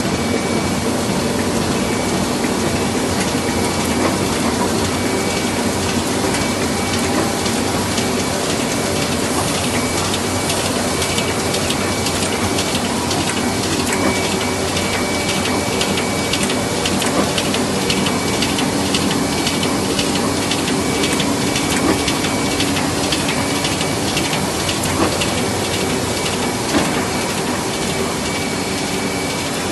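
Ryobi 1050 sheetfed offset printing press running, its inked rollers turning. A steady mechanical clatter with fast, regular clicking throughout.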